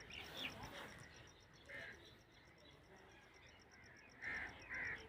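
A few short, faint bird chirps with pauses between them: one early, one a little before the second second, and two close together near the end.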